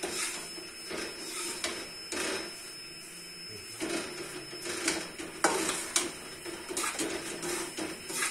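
Flat metal spatula scraping and knocking against a metal wok as semolina is stirred and roasted in ghee, with irregular scrapes and clinks several times.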